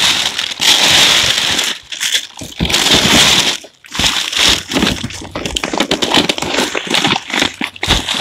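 Crumpled kraft packing paper and a plastic bag crinkling and rustling as hands dig through a shipping box, in loud, irregular bursts with short breaks about two and four seconds in.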